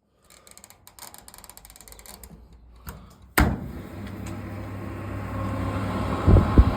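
Simpson Sirocco/Eziset tumble dryer being started: faint clicks and rattles, a sharp click about halfway, then the motor, drum and fan run up into a steady hum that grows louder, with two thumps near the end.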